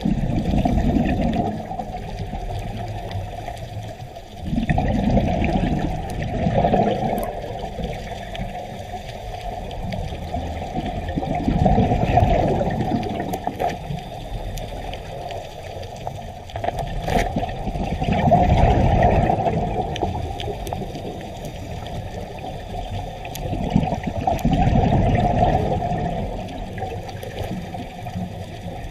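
Underwater sound of a scuba diver's exhaled bubbles rushing up in five surges a few seconds apart, over a steady background hiss of the water.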